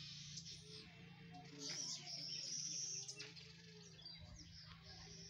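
Faint outdoor ambience of birds chirping, with a steady high-pitched trill in the middle and again near the end, over a constant low hum.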